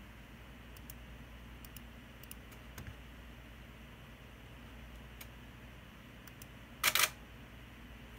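Nikon D3 DSLR shutter firing once, about seven seconds in: a quick double clack of mirror and shutter as it shoots a film frame for scanning. A few faint light clicks come before it.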